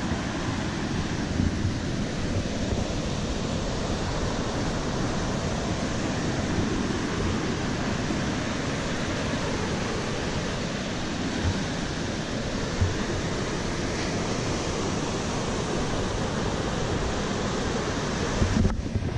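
Sea surf: waves breaking and foam washing up the sandy beach in a steady, even rush.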